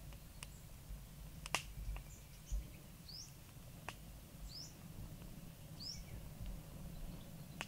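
A bird repeats a short, high, upward-sliding chirp every second or so, over a low rumble. Several sharp clicks or snaps come through, the loudest about a second and a half in.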